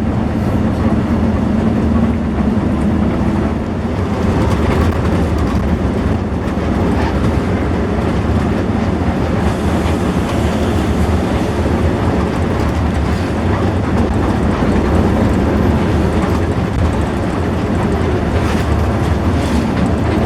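Steady engine and road noise inside the cabin of a moving coach bus, a continuous low rumble.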